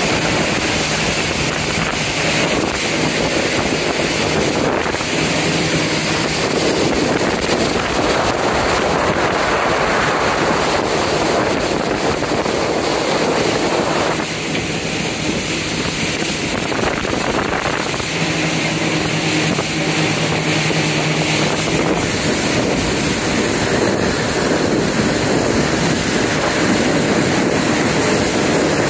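Yamaha jet boat running under way: a steady engine and jet-drive hum under rushing water, with wind buffeting the microphone.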